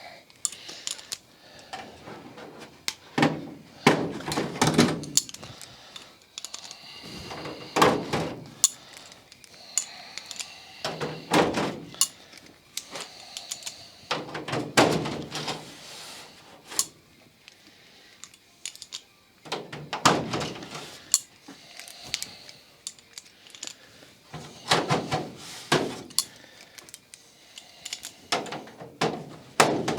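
Clunks, knocks and rattles of a thin aluminium wing tip skin being handled and trial-fitted onto the wing, coming in short clusters every few seconds with quieter gaps between.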